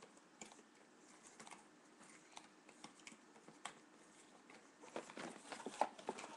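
Scattered small clicks and light rustles of fingers untwisting wire twist ties that hold a toy accessory in a doll's box insert, getting busier and louder near the end.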